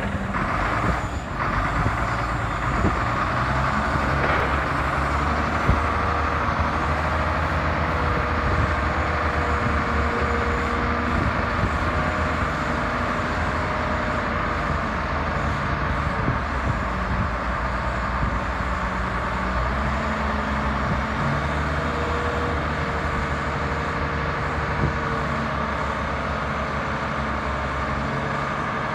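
Caterpillar 966F Series II wheel loader's six-cylinder turbodiesel engine running steadily, its pitch stepping up and down a few times while the bucket is raised and lowered.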